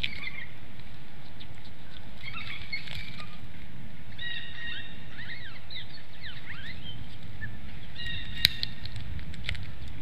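Small birds calling in the background, several short calls and chirps, over a steady low rumble. Scattered clicks and one sharp snap about eight and a half seconds in come from a bald eagle tearing at a bird carcass in its stick nest.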